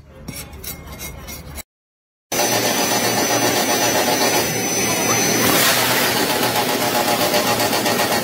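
An automatic rotary bag-filling and sealing machine running, a loud steady mechanical whir with a fast, even pulse. Before it comes in, a blade scrapes at wood, then there is a short gap of silence.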